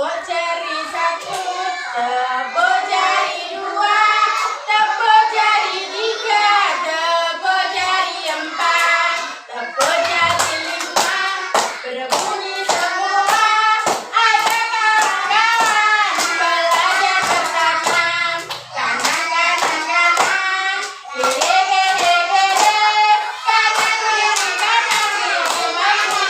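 Young children singing a song together, with hands clapping in time from about ten seconds in.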